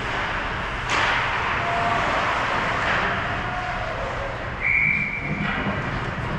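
Indoor ice hockey rink ambience: echoing scrape of skates and clatter of sticks and puck from play at the far end of the ice. There is a sharp crack about a second in and a short high tone a little before the end.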